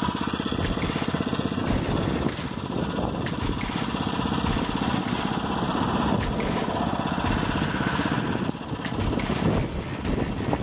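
Motorized bicycle's small engine running steadily under way, easing off slightly near the end.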